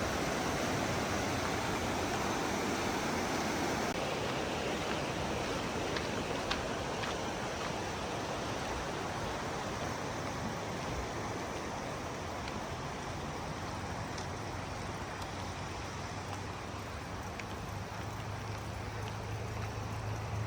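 Steady rush of falling water from a waterfall, fading slightly, with a low hum coming in near the end.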